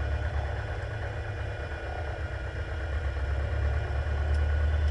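Diamond DA40's piston engine running at idle, heard from inside the cabin as a steady low drone that grows a little louder near the end.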